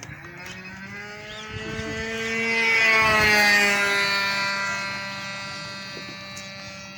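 RC model airplane's motor and propeller whine as the plane flies past, growing louder to a peak about three seconds in, then fading as its pitch drops.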